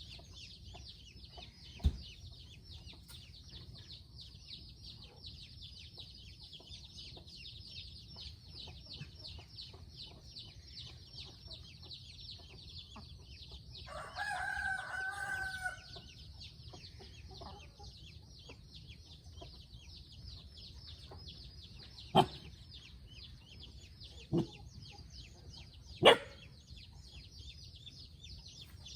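A rooster crows once about halfway through, over a steady, fast, high-pitched insect trill. Four sharp knocks stand out, one near the start and three in the last third.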